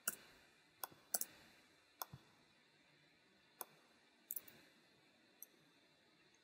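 Faint, scattered clicks of a computer mouse and keyboard, about eight over several seconds, some in quick pairs.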